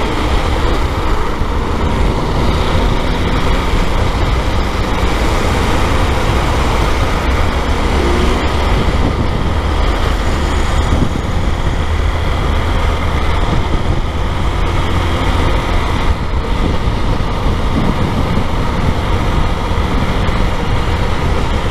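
Motorcycle being ridden through city traffic, heard from the rider's seat: the bike's engine running with a steady rush of road and wind noise and passing traffic.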